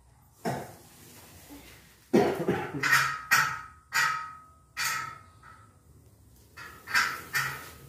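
Masking tape being peeled off a freshly painted table top, coming away in a series of short, sharp rips, about eight in all.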